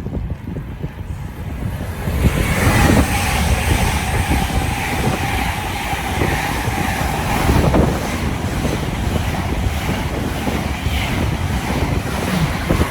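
An express train passing through the station at speed without stopping. A loud rush of wheels and air swells in about two seconds in and holds to the end.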